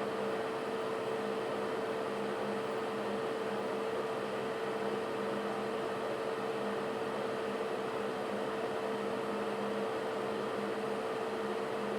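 Bathroom ceiling exhaust fan running steadily: an even whoosh of moving air with a constant motor hum.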